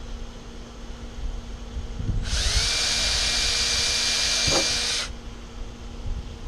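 Power drill boring a pilot hole into the wooden roof of an RV trailer: it spins up about two seconds in with a short rising whine, runs steadily for about three seconds, then stops.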